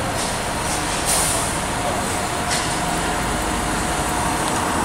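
Fire trucks' engines running steadily, with a short hiss about a second in.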